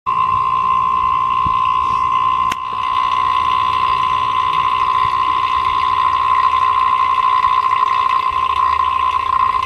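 NAVAC two-speed DC-inverter vacuum pump running on high speed while evacuating an HVAC system: a steady high whine over a low rumble. There is a click and a brief drop in level about two and a half seconds in.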